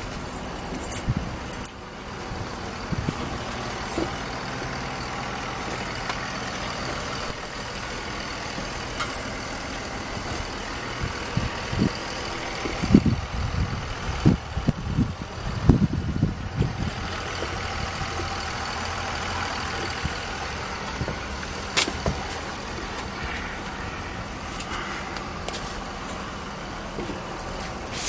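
A 1995 JCB 217 backhoe loader's diesel engine idling steadily, with a cluster of knocks and rattles about halfway through.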